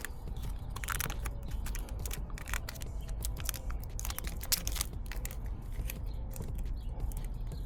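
Protective tape being peeled off a car's painted body panel and crumpled: a run of irregular crackles and small clicks.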